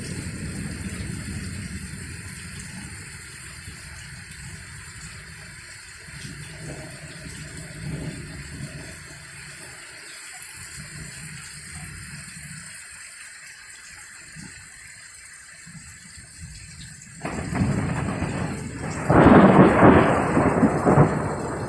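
Heavy rain falling steadily, with low thunder rumbling at first and fading. About seventeen seconds in a loud thunderclap breaks in suddenly and rolls on, loudest a couple of seconds later.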